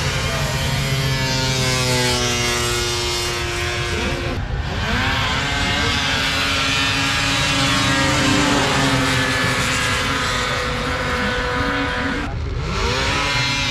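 700-plus-horsepower drag-racing snowmobiles running hard at full throttle down the strip. The engine sound breaks off abruptly twice, and each time a new engine sound comes in, rising in pitch as a machine accelerates.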